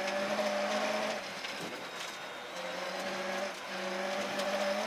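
Rally car engine running hard, heard from inside the cabin on a rough gravel forest stage. The engine note drops briefly about a second and a half in and again near three and a half seconds, as the driver lifts or changes gear, and there are a few sharp knocks from the car jolting over the rough road.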